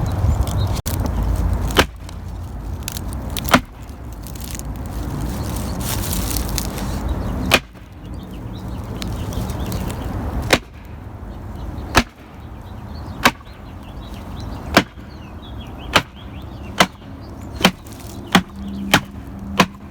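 Pleated filter from a bagless cyclonic vacuum cleaner being knocked against a hard surface to shake the packed dust out. About a dozen sharp knocks, spaced a second or more apart at first and coming quicker near the end.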